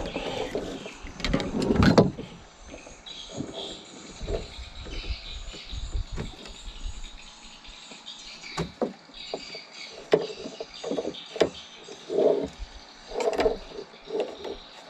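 Knocks, bumps and rattles of fishing gear being handled in a small wooden boat as the rod is set down, with a heavier thump about two seconds in and a run of light knocks in the second half. A faint high chirping runs behind.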